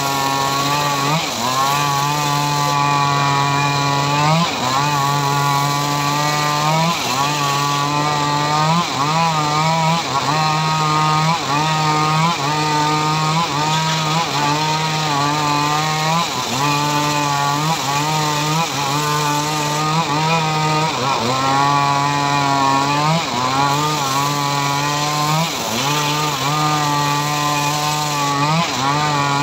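Homemade cart-mounted circular saw ripping mahogany planks. Its drive runs with a steady pitched hum that dips and recovers again and again, about every one to two seconds, as the blade takes load in the wood.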